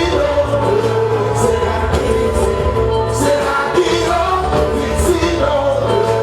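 Pop music with singing over held bass notes and a regular beat.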